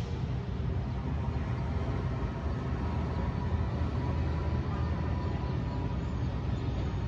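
Steady low rumble of downtown city traffic, with a faint thin whine through the middle.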